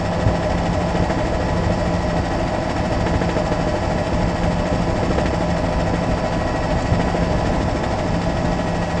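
Helicopter engine and rotor noise heard from aboard the aircraft: a steady drone with a constant low hum and higher whining tones.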